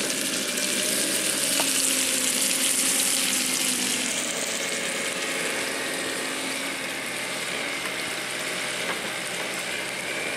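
Pork chop sizzling in a frying pan on a portable camp stove, loudest in the first few seconds and easing off about four seconds in. A steady low engine hum from the Bobcat mini excavator runs underneath.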